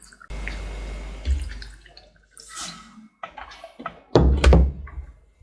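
Water poured into a blender jar packed with chopped coconut for about two seconds, then a few loud, sudden thumps of the jar or its lid being handled.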